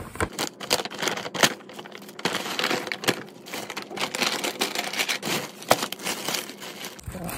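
Brown paper takeout bag and clear plastic food bags rustling and crinkling as they are handled and unpacked, with a few sharper snaps of plastic.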